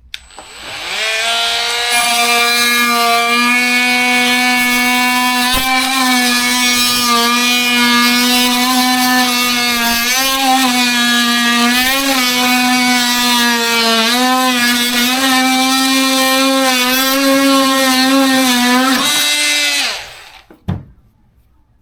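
Cordless oscillating multi-tool cutting into pine with a new blade: a steady, loud buzz that comes up to speed, drops slightly in pitch a few times as the blade bites, then winds down and stops about two seconds before the end.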